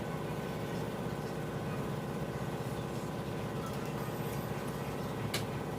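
Steady background hum with a single sharp click about five seconds in.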